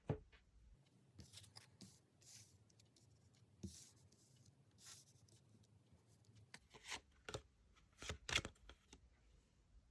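Tarot cards being handled: soft swishing as cards slide against each other, and a few sharp taps as they are set down, the loudest near the end.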